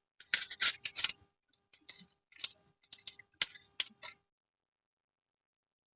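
Several short, irregular bursts of plastic crinkling and scraping as the protective film and its packaging are handled, stopping after about four seconds.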